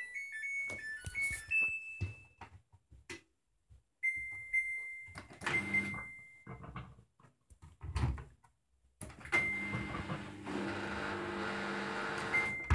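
Samsung washing machine control panel beeping: a quick run of short beeps at a few different pitches, more beeps about four seconds in, then from about nine seconds the machine runs a test component with a steady hum and rushing noise, with further beeps over it.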